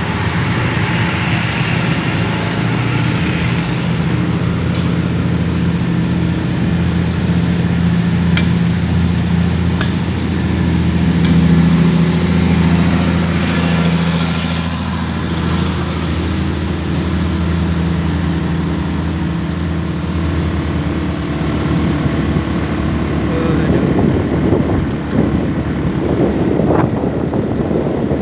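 A motor vehicle engine runs steadily with a low hum that swells slightly about a third of the way in. A few light clinks come around the middle.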